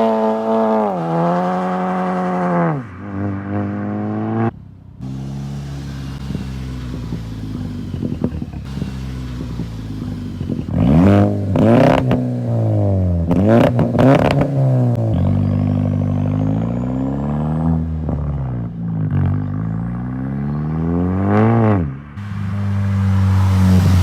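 Tuned MK6 Jetta GLI's turbocharged four-cylinder engine, heard through a 3-inch exhaust with a small bullet muffler. It is revved in several sharp blips, then climbs and drops in pitch repeatedly as it is launched and run up through the gears.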